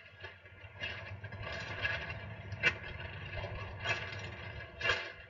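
Wind buffeting the microphone in gusts: a low rumble with louder rushes about once a second, and a sharper flap about halfway through, typical of a kite's fabric catching the wind.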